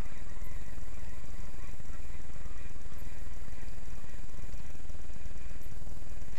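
Steady low rumble of wind buffeting the microphone, even in level throughout, with faint high bird calls above it near the start.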